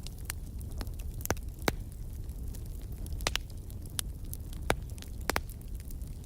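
Wood fire crackling in a fireplace: a steady low rumble of the flames with irregular sharp pops and snaps from the burning logs, the loudest pops a little under two seconds in and just under five seconds in.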